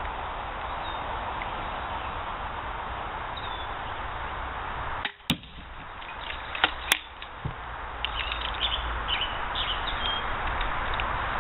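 Pistol crossbow being shot with 10-inch bolts: two sharp snaps about a second and a half apart, with a few fainter ticks, against a steady hiss.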